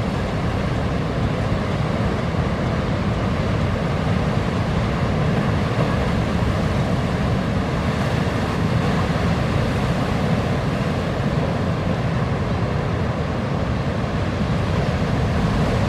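Steady rush of ocean surf with wind, a constant low rumble.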